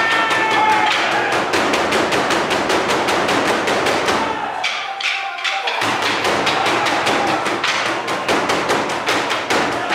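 Ensemble of traditional Burundian drums (ingoma), tall wooden drums beaten with wooden sticks, playing a fast driving rhythm of heavy thuds. The drumming breaks off briefly about four and a half seconds in, then starts again about a second later.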